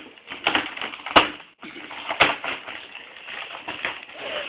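An irregular run of taps and knocks, with sharper knocks about a second in and a little after two seconds.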